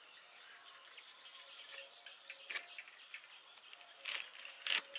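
A few crisp knife cuts through pak nam (Lasia spinosa) stalks held in the hand: one about two and a half seconds in and two near the end, over faint insects chirping.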